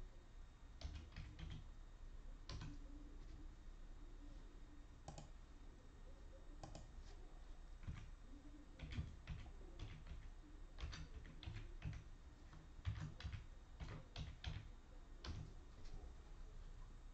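Faint, irregular clicks and taps of typing on a computer keyboard.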